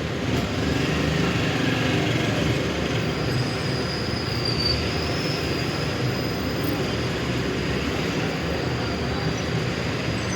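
City street traffic noise: a steady rumble of vehicles going by, with a thin high squeal for a couple of seconds near the middle.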